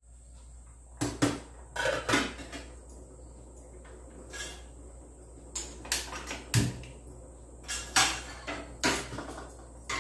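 Steel cookware clattering on a gas stove: a lid and a spatula knocking against pans, a run of sharp clanks at irregular intervals.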